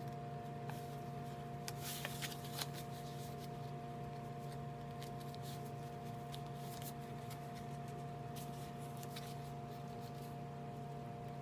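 A sheet of paper being folded and creased by hand on a tabletop: short crinkles and rustles come in clusters as each fold is pressed down, over a steady background hum.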